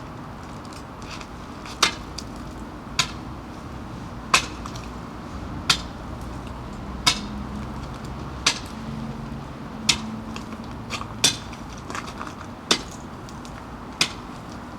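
Sharp single knocks, about one every second and a half, over a low steady hum.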